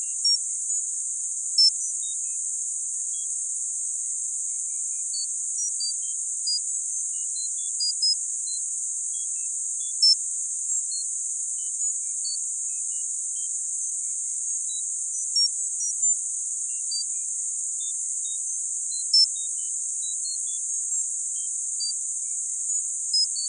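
Synthetic tinnitus sound-therapy signal: a steady high hiss confined to a narrow band around 8 kHz, with short high beeps at random pitches scattered over it, about two a second. It is meant to be played at the same volume as one's perceived tinnitus to ease it.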